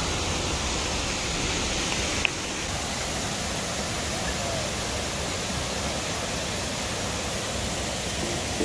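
Waterfall rushing steadily, a plunge of about six metres into a pool. A small click about two seconds in, after which the rush is slightly quieter.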